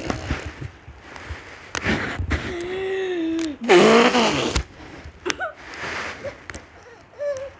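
Young child's voice making vocal noises: a held note about two and a half seconds in, then the loudest sound, a breathy burst whose pitch falls, with a few shorter clicks and vocal bits around them.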